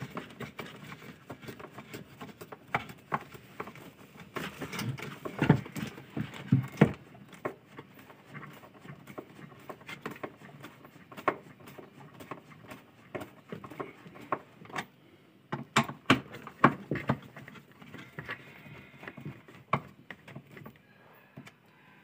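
Irregular clicks and knocks of a screwdriver and hands working at the plastic belt-tensioner base on a washing machine's gearbox frame as its screws are tightened. The louder knocks come in clusters about five seconds in and again around fifteen to seventeen seconds.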